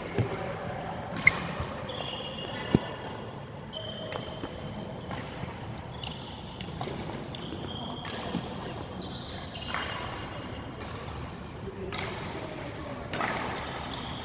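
Rubber-soled court shoes squeaking on a wooden sports-hall floor, in many short high chirps, with the echo of a large hall. A few sharp knocks stand out in the first three seconds.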